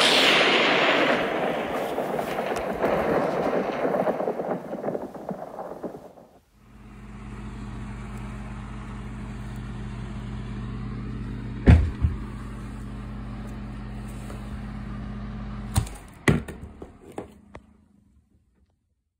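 A thunderclap breaks suddenly and rumbles, fading over about six seconds. Then a steady electrical hum runs, broken by a few sharp knocks, and dies away a couple of seconds before the end.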